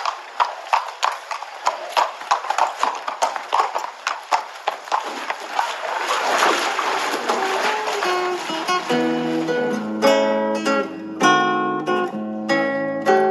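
A horse's hooves clip-clopping, about three strikes a second, for the first half. A short rush of noise follows, then an acoustic guitar playing plucked notes from about two-thirds of the way in.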